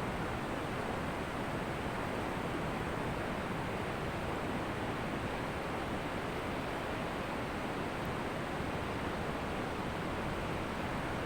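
Ocean surf washing onto a beach: a steady, even rush of water noise with no distinct breaks standing out.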